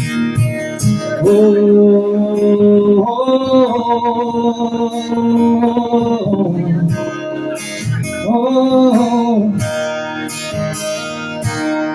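Live acoustic guitar strummed, with a voice holding three long wordless notes over it in the middle, between sung lines.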